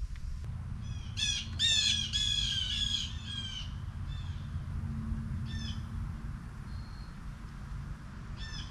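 A wild bird calling: a quick run of harsh, repeated notes about a second in, then short calls around the middle and again near the end, over a low steady rumble.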